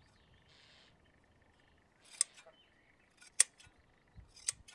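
Hand sheep shears snipping through a dog's shaggy coat: three short, sharp snips about a second apart, starting about two seconds in.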